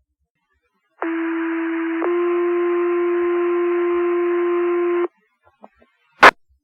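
Two-tone sequential fire pager alert over a fire dispatch radio channel: a steady buzzy tone of about a second, then a slightly higher tone held for about three seconds, which sets off the volunteer firefighters' pagers for the station. About a second after the tones stop comes a single sharp radio click, the loudest sound.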